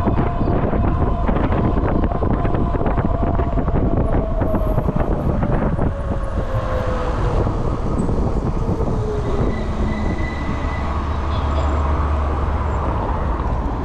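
Wind rushing over the handlebar microphone and fat tyres rumbling on pavement as a Juiced fat-tire e-bike rides fast, with the electric motor's whine slowly falling in pitch as the bike slows from about 29 mph.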